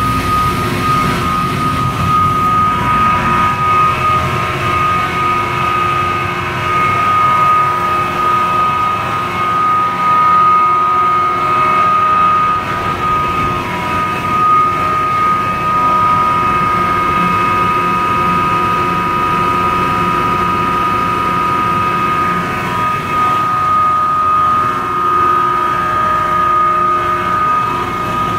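Erema RM160E plastic recycling and pelletizing line running: a loud, steady industrial hum with a high-pitched whine held on one note and a few fainter tones above and below it.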